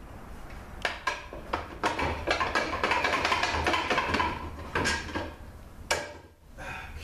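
Metal parts clinking and scraping inside a Ford AOD transmission case as the center support is worked loose and pulled out by hand: a few sharp clicks, a dense run of rattling in the middle, and one sharp click near the end.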